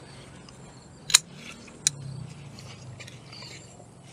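Two sharp snaps, about a second in and then just under a second later, as leafy vegetable stems are picked by hand, over a faint low hum.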